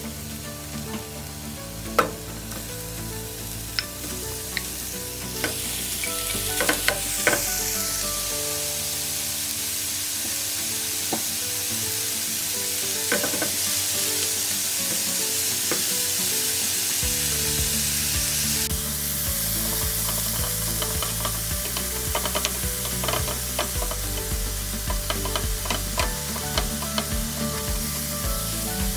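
Chopped onion and ground beef sizzling in a hot nonstick frying pan, with a spatula scraping and tapping the pan as it is stirred. The sizzle grows louder and brighter about five seconds in.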